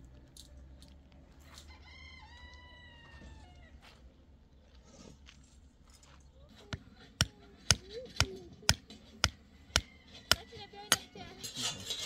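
A rooster crows once, a single falling call, then a series of about ten sharp knocks comes at roughly two a second.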